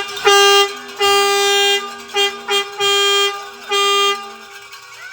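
Spectators' air horns blown in a string of short and long blasts, about six in all, with a second, lower-pitched horn sounding along with them for a couple of seconds early on.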